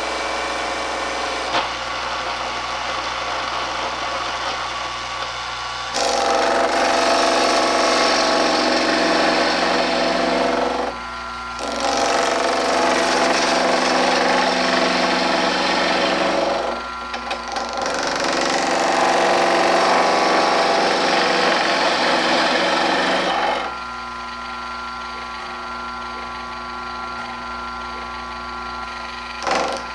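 Carbatec mini wood lathe running with a steady motor hum, while a hand-held turning tool cuts into the inside of the spinning wooden bowl in three loud bouts of about five seconds each. Before and after the bouts only the lathe's hum is heard.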